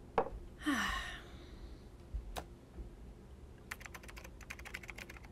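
Typing on a MacBook laptop keyboard, a quick run of keystrokes over the last second and a half. Before it come a couple of single knocks and a brief noisy rush in the first second.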